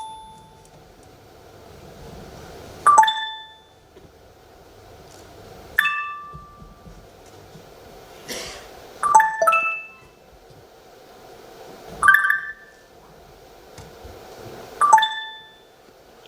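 Electronic notification pings, like phone alert tones, sounding about every three seconds. Each is a quick chime of a few bright notes that dies away within a second.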